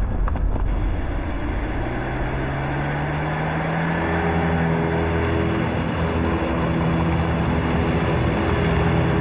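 Engine of a vintage sedan running steadily as the car drives along a dirt road, with tyre and road noise. The engine's low hum rises a little in pitch over the first few seconds, then holds steady.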